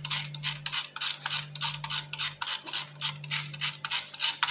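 Dial of a mechanical 24-hour segment timer being turned by hand, its ratchet clicking evenly about four to five times a second as the clock is set to the present time. A steady low hum runs underneath.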